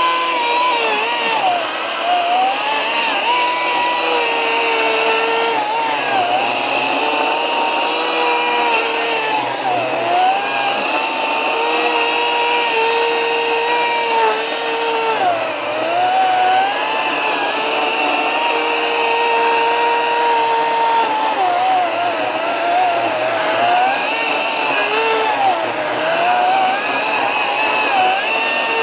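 Ryobi 40V brushless battery chainsaw cutting into a tree stump. Its electric motor gives a steady high whine that sags in pitch several times as the chain loads up in the wood, then climbs back.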